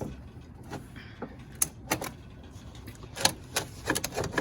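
Irregular knocks and clicks, a handful of sharp strikes scattered over a few seconds, as a car battery is shifted and settled into its tray in the engine bay.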